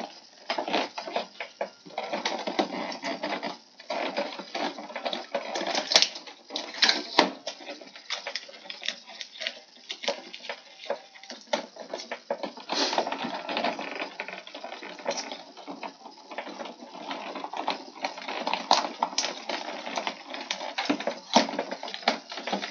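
Clear plastic blister packaging being handled and pulled at, crinkling and crackling with irregular clicks and a few sharper snaps.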